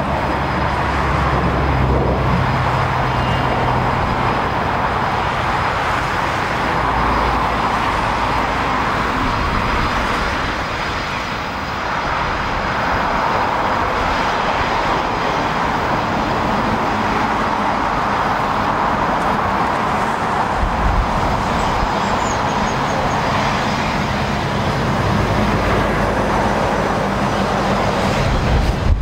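Eurofighter Typhoon's twin Eurojet EJ200 turbofans running steadily at taxi power, a continuous jet rush. Road traffic rumbles underneath, swelling near the start and again towards the end.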